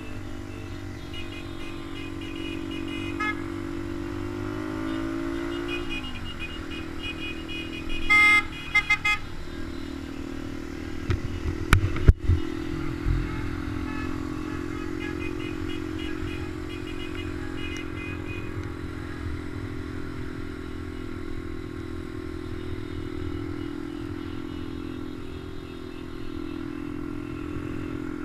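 Honda Dax mini motorcycle's small single-cylinder four-stroke engine running steadily under way, revs rising for a couple of seconds about five seconds in. A horn toots several short times about eight seconds in, followed by a few knocks and clatter a little later.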